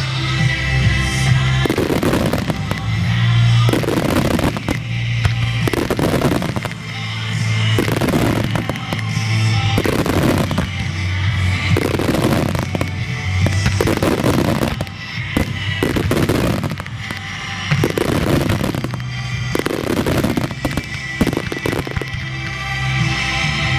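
Fireworks shells bursting again and again, some in quick clusters, with crackling, over loud music.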